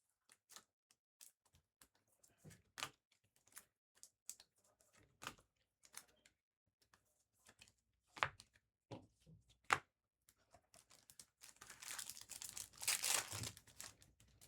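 Trading cards and their packaging being handled: scattered soft clicks and slides, two sharper snaps a little past the middle, then about three seconds of crinkling and tearing near the end.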